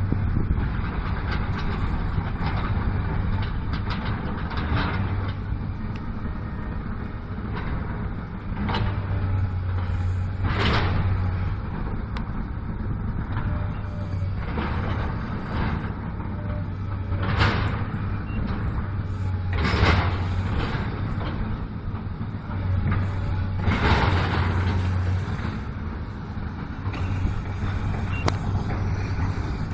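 Road traffic passing on a wet road: several vehicles go by one after another, each a swelling and fading swish of tyres, over a steady low engine hum.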